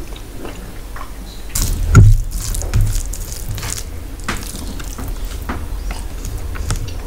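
Close-miked eating sounds of someone eating rice with her fingers: wet chewing and mouth smacks in an irregular run of short clicks, loudest about two seconds in.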